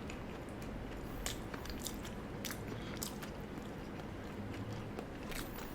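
Close-miked chewing of animal fries, with short mouth clicks every second or so.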